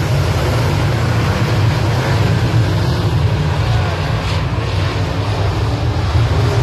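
A pack of semi late model dirt-track race cars running around the oval, their V8 engines making a loud, steady drone.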